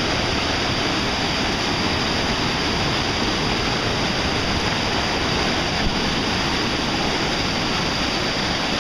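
Whitewater rapids of a mountain river rushing over and between boulders: a steady, even rush of water.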